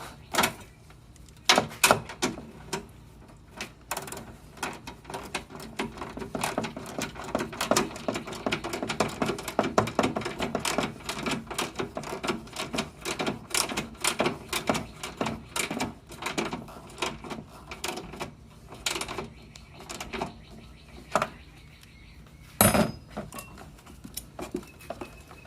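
Metal tools and hardware clicking and clinking as a bolt and washer are worked into the ground-cable mounting hole, with a run of rapid small clicks through the middle and a few louder knocks.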